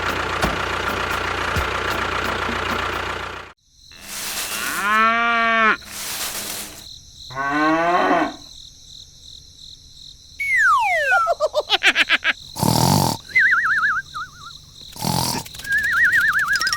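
A string of edited-in sound effects. A busy passage of music and engine-like sound cuts off sharply about three and a half seconds in. It is followed by arching, swooping tones, a long falling whistle, short hissing bursts and warbling tones near the end.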